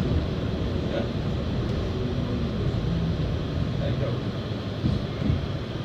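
NYC subway car rolling and slowing into a station: a steady low rumble of steel wheels on the rails, with a faint low whine in the middle and a few light knocks.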